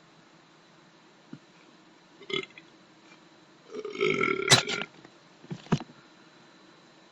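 A man belching: a short burp about two seconds in, then a long, loud belch lasting about a second, followed by two short sounds near the end.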